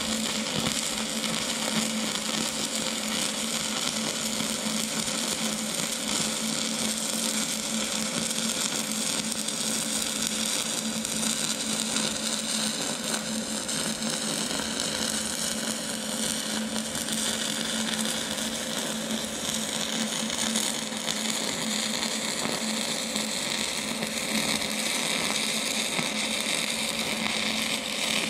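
Shielded metal arc (stick) welding with a 7018 electrode at 80 amps: the arc gives a steady crackle with a faint steady hum underneath.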